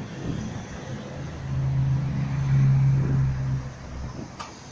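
Electric tram rolling past close by: a low rumble with a steady low hum that swells to its loudest in the middle and then fades, and a sharp click near the end.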